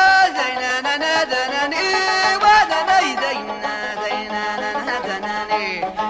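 Background music in a Middle Eastern folk style: a melody of bending, ornamented notes over a steady held low note.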